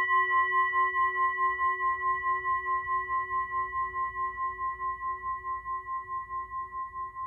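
A single ringing bell-like tone with several overtones, slowly dying away and wavering in a fast, even pulse about five times a second.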